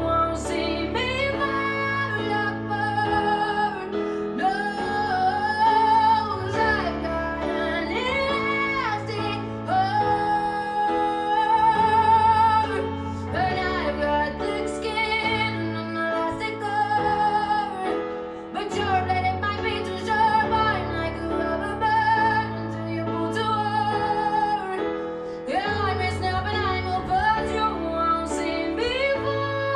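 A slow, emotional song: a woman singing long held notes with vibrato over piano and a bass line.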